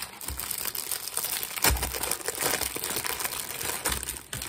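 Clear plastic candy wrapper crinkling and crackling as hands pull and twist at it, with one sharper crackle about one and a half seconds in.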